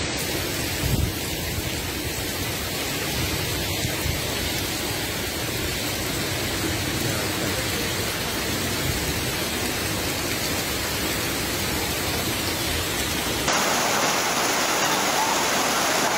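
Torrential rain pouring down in gusty wind, a steady hiss over a low rumble. About thirteen and a half seconds in it switches abruptly to the louder, brighter rush of a muddy floodwater torrent.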